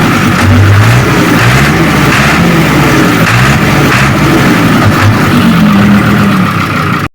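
Fiat 880 DT5 tractor's five-cylinder diesel engine running, its note rising and falling a little as the revs vary.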